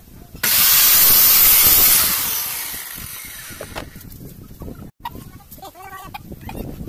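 Sliding compound miter saw starting suddenly and running loud for about a second and a half, then winding down over the next second. Near the end a rooster crows in the background.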